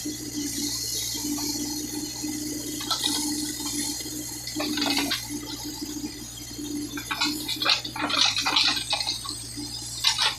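Case 580K backhoe's diesel engine running steadily under a rushing hiss, with a run of clanks and knocks about seven to ten seconds in.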